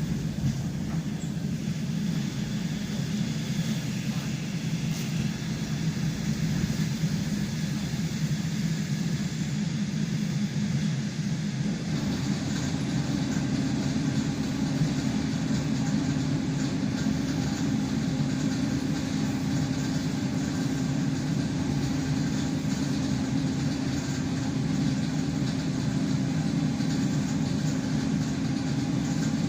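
ED9M suburban electric train running, heard from inside the carriage: a steady rumble of wheels on rails and running gear. About twelve seconds in a higher steady hum joins the rumble.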